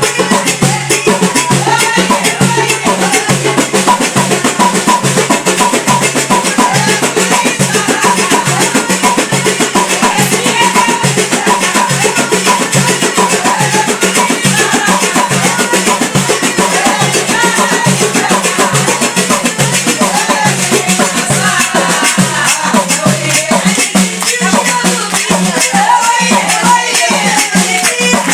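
Algerian folk music in the Aouniyat style: fast, steady hand percussion and shakers with a sung melody over them.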